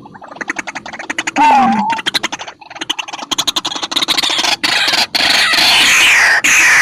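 White-breasted waterhen (ruak-ruak) calling: a fast run of rattling notes, a loud gliding call about a second and a half in, then from about three seconds in a loud, harsh string of repeated calls that grows stronger.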